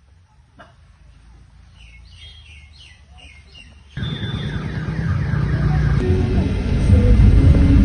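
Faint bird chirps, then about four seconds in a motor vehicle's engine starts up loud and keeps getting louder.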